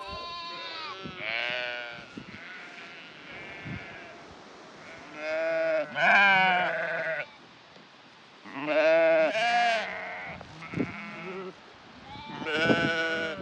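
Sheep bleating over and over, several quavering calls overlapping, the loudest about six, nine and twelve seconds in.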